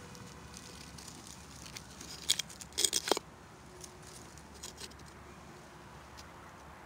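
Faint rustling with a few short crunching, scraping bursts about two to three seconds in and a couple of small clicks later, from handling around old clay tiles lying in dry grass.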